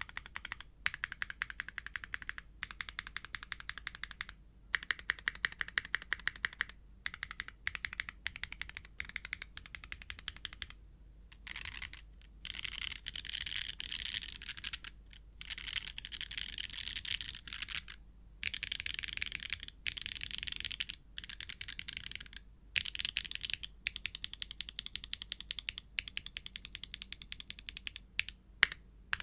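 Mechanical keyboard with Kailh Calligraphy switches in an aluminium plate and GMK keycaps, its keys pressed over and over in quick runs of a few seconds with short pauses between, key by key, the later runs denser and brighter.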